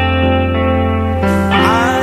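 Recorded Christian song playing, with held instrumental chords and a steady bass underneath; a gliding melodic line comes in about one and a half seconds in.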